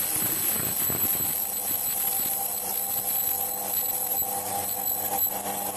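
Metal lathe cutting steel: a steady high-pitched ringing whine from the cut over the continuous noise of the running machine.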